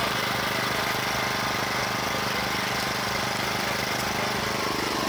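An engine running steadily at idle, with an even hum that does not change.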